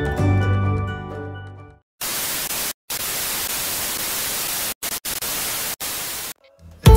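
Background music fading out, then television static hiss for about four seconds, broken by a few brief dropouts. New music cuts in sharply near the end.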